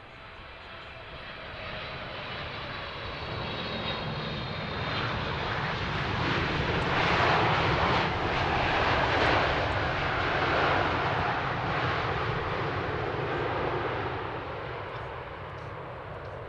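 Jet airliner passing by, its engine noise building to a peak about halfway through and then fading away.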